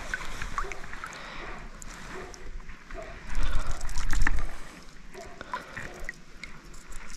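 Running river water, a steady wash with scattered small clicks and splashes. A louder low rumble lasts about a second, starting a little over three seconds in.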